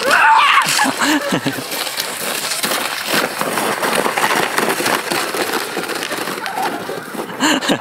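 A sled sliding down a snow slope, its runners scraping on the snow in a steady hiss, with a rider's shout at the start and brief yells along the way.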